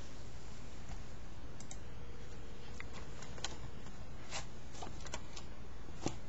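Phone keypad buttons clicking as a number is dialled: about ten irregular clicks, starting about a second and a half in, the loudest near the end, over a steady low hum.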